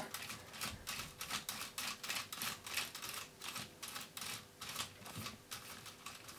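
Plastic LEGO Technic gears and parts clicking as the forklift model's boom mechanism is turned by hand at its top knob: a fast, irregular run of light clicks.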